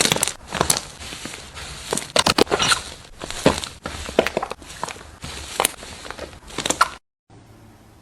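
Slime being squeezed and worked by hand, giving irregular sharp clicks, pops and crackles. It cuts off abruptly near the end, leaving only faint hiss.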